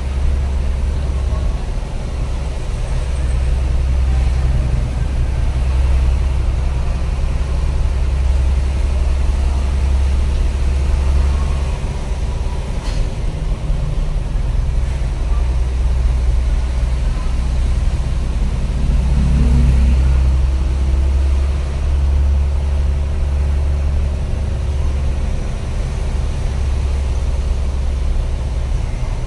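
Truck engine running steadily with a constant low drone and road noise, heard from inside the cab while driving.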